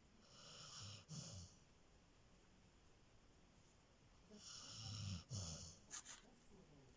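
Snoring: two snoring breaths, each a little over a second long and about four seconds apart, with a brief click just after the second.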